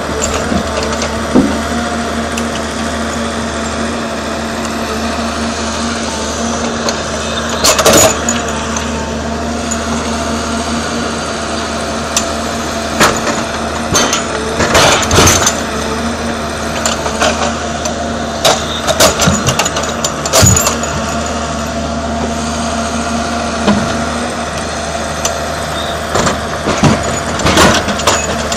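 Ekolog forestry forwarder's diesel engine running steadily under hydraulic crane work, with logs knocking and clattering as the grapple drops them into the load bunk: a burst of knocks about 8 seconds in and several more through the second half.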